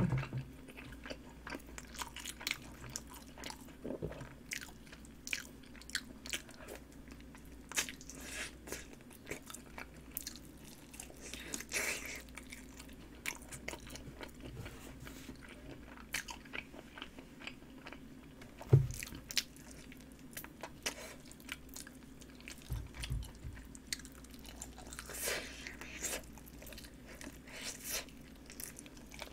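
Close-miked chewing and biting of chicken drumstick: irregular wet mouth clicks and smacks scattered throughout, a few of them louder.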